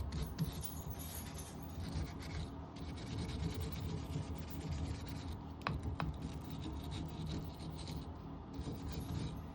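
Wire brush scrubbing vinegar-softened lime scale off bathtub shower valve fittings, a steady scratching, with two short clicks a fraction of a second apart a little past the middle.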